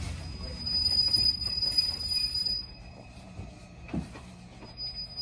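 Hanshin Railway train's steel wheels squealing on the rails: a steady high-pitched squeal over a low running rumble. The squeal stops near the three-second mark as the rumble fades, then starts again near the end.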